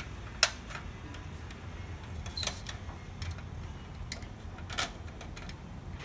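Small plastic clicks and taps from a circuit board and its wire connector being handled inside an opened laser printer: one sharp click about half a second in, then a few softer clicks scattered through, over a low steady hum.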